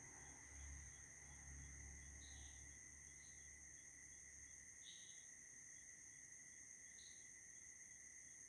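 Near silence: room tone with a faint steady high hum and faint, short, high chirps repeating through it.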